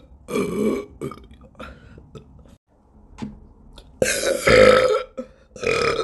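A young woman burping loudly three times: a short burp near the start, the loudest and longest about four seconds in, lasting about a second, and a shorter one just before the end.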